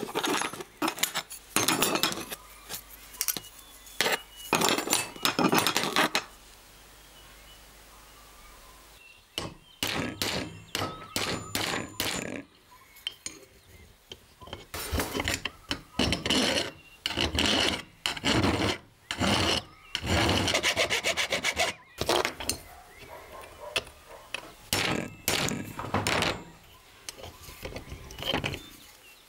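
Hand filing on the rusty steel of an old folding knife: a series of rasping back-and-forth strokes, roughly one a second, broken by a quiet pause of a few seconds and some light clicks before the strokes resume.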